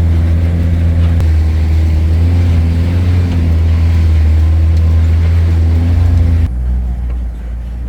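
4x4 truck engine running steadily under load, a loud low drone with road noise over it. About six and a half seconds in the sound abruptly turns quieter and duller.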